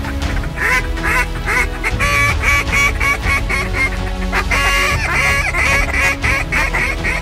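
Duck quacking in quick runs of short calls, repeated again and again, over background music.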